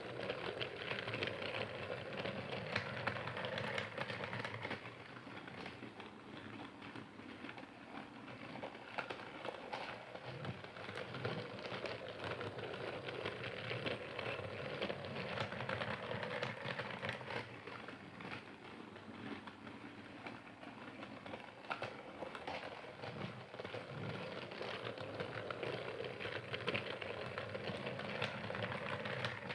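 Motorised Percy toy train running along its track with a continuous rattling clatter of small clicks over a motor hum. It grows louder and fades again about every twelve seconds.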